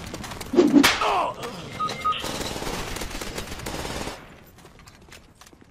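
First-person shooter gunfire sound effects: sharp shots about half a second in, two short beeps near two seconds, then a dense stretch of automatic fire that cuts off about four seconds in, leaving faint scattered pops.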